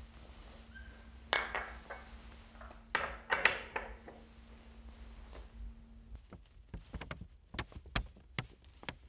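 Porcelain teacup clinking against its saucer, once about a second in and again a couple of times around three seconds in, as the cup and saucer are handled and set down. A string of short sharp clicks follows in the last few seconds.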